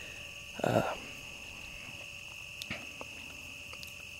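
Crickets chirring in a steady, unbroken high drone. A short rush of noise comes just under a second in, and there are a couple of faint clicks later.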